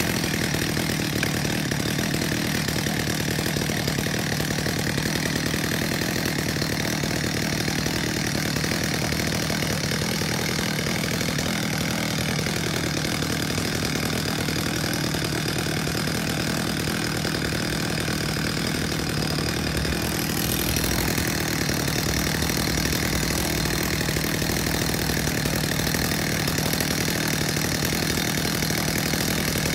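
Stihl chainsaw idling steadily on the ground just after a hard cold start, left running to warm up. Its tone brightens slightly about twenty seconds in.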